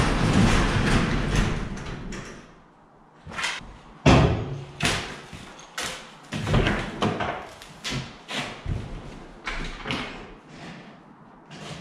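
A rushing noise that fades away over the first two seconds, then a run of irregular knocks and thuds, the loudest a door-like slam about four seconds in.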